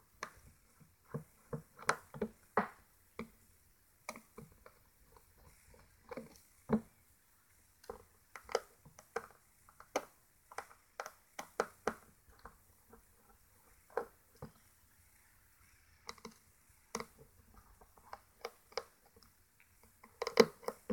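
Small screwdriver undoing the screws of a smartphone's back frame: irregular light clicks and ticks of the driver tip on the screws and the metal-and-plastic frame. A denser, louder cluster of clicks comes near the end.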